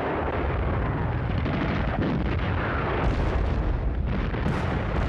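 Continuous battle noise of artillery fire and explosions, blended into a dense, steady rumble with no single shot standing out.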